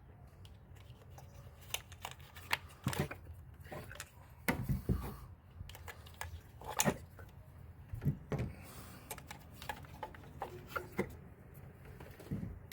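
Ignition coil packs being pulled out of a 2007 Honda CR-V's engine one by one: irregular light clicks and knocks, with faint rubbing in between.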